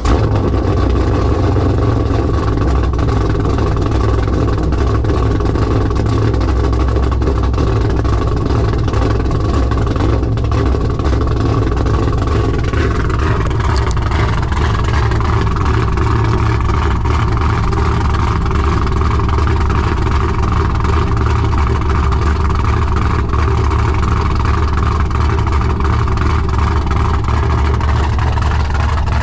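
Car engine running steadily after being started, with most of its sound low and deep and no revving.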